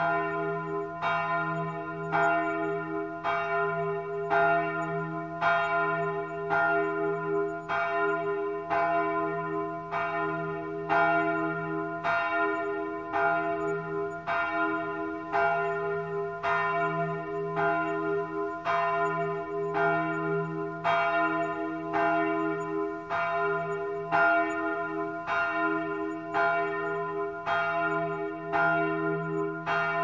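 Church bell tolling, struck over and over in a steady, even rhythm a little more than once a second. Each stroke rings on into the next over a constant low hum.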